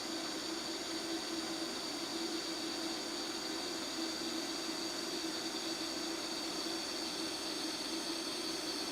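DC lift-TIG welding arc burning steadily at about 70 amps under argon shielding gas: an even, unbroken hiss with a constant hum and a faint high whine.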